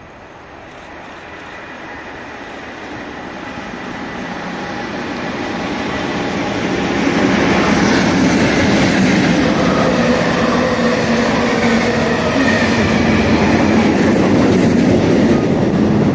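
English Electric Class 37 diesel locomotive, with its V12 engine, hauling a train of yellow track machines through the station. It grows steadily louder as it approaches, is loudest as the locomotive passes about seven seconds in, then stays loud while the machines roll by.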